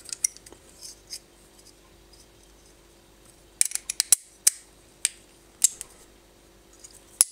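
Scattered small metallic clicks as a screwdriver turns the screw of a knife-sharpener clamp and the clamp and knife are handled, with a quicker run of clicks about three and a half to four and a half seconds in.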